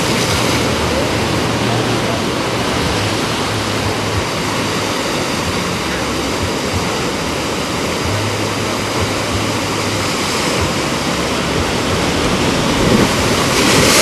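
Steady rush of water, an even wash of noise that grows a little brighter and louder near the end.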